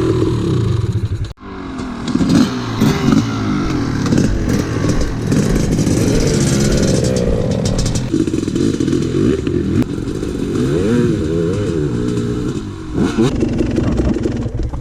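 Dirt bike engine running as the bike is ridden, its pitch rising and falling with throttle and gear changes, with some rattling. A brief sudden dropout about a second in.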